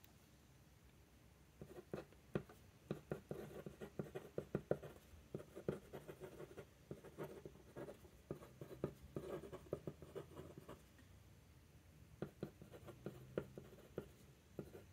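Broad-nib fountain pen (TWSBI Diamond 580) writing on paper: faint scratching and small ticks of the nib strokes in quick runs, with a short pause about three-quarters of the way through before a few more strokes.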